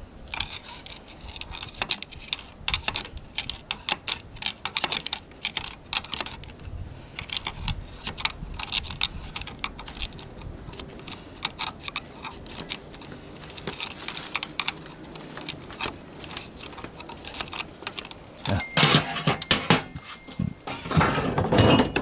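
Irregular light metallic clicks and taps of tools and small parts being handled while working on an outboard's prop-shaft seal housing, with louder clattering near the end.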